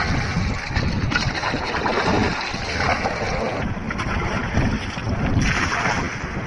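Wind buffeting the microphone with a gusty rumble, over water sloshing and splashing as a tide pool is bailed out.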